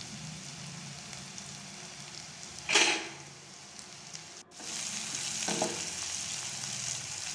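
Shallots, green chillies and spice powders sizzling in hot oil in a non-stick kadai, with a metal spatula stirring and scraping the pan. A short loud burst of noise comes about three seconds in; past halfway the sizzle cuts out for a moment and returns louder.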